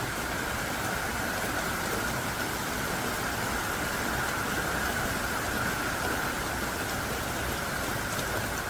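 Heavy, fierce downpour of rain falling steadily with an even, unbroken sound.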